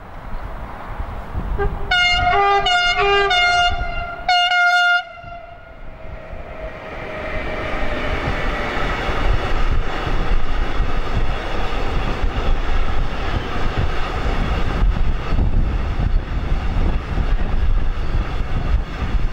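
A train horn sounds a few short blasts at changing pitch, then one longer blast. A container freight train follows, its wagons rumbling and clattering along the rails, growing louder and then holding steady.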